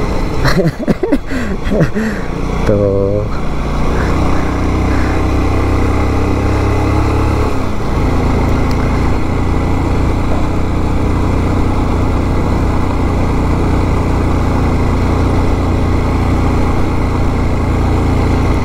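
Bajaj Pulsar 180 motorcycle's single-cylinder engine running steadily under way, with wind and road noise. The engine note shifts about eight seconds in, then holds steady.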